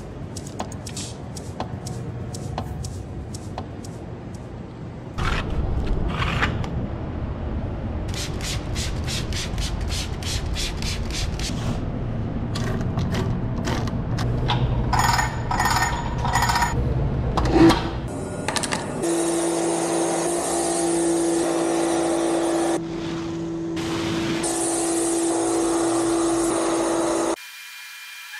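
A series of car-washing sounds: clicks and handling knocks, then a few strokes of a hand pump dispenser on a plastic jug of wash concentrate. In the last third, a pressure washer runs with a steady hum while a foam lance sprays with a hiss, cutting off abruptly near the end.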